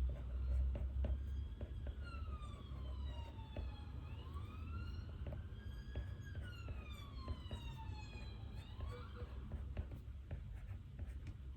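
An emergency vehicle's siren wailing, coming in about two seconds in with its pitch sweeping slowly down, up and down again, then a quick rise and it fades out a little before the end. Underneath, a steady low hum and scattered small clicks.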